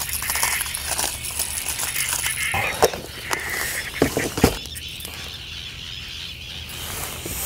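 Handling a plastic tackle box of hard fishing lures: rustling with light plastic clicks and rattles, and a few sharp knocks between about 3 and 4.5 seconds in as the box is handled and stowed.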